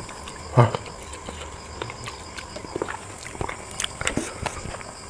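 Close-miked eating sounds of chewing and sucking on chicken feet: one short, louder mouth noise about half a second in, then scattered small wet clicks and crackles.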